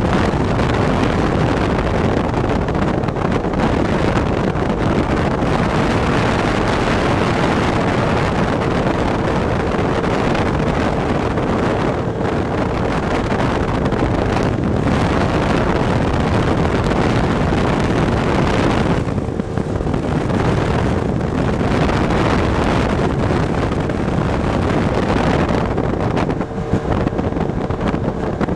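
Motorboat running at speed across choppy water: the boat's engine and water noise mixed with heavy wind buffeting on the microphone, and a faint steady hum underneath.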